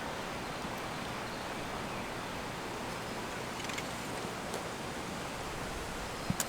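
Steady hiss of rain coming in over the yard and trees, with a couple of faint clicks near the end.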